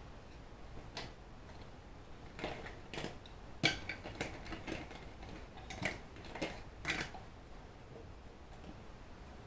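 A string of light clicks and taps, as of small craft-supply containers and pieces being picked up and set down on a table, about a dozen over several seconds, the sharpest about three and a half seconds in.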